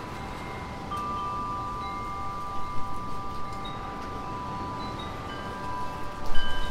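Wind chimes ringing in the breeze: several long, overlapping tones that sustain and fade, with a fresh strike about a second in that rings on. Wind blows beneath, gusting near the end.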